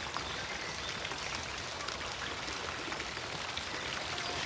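Steady, even rushing of falling water from a garden fountain.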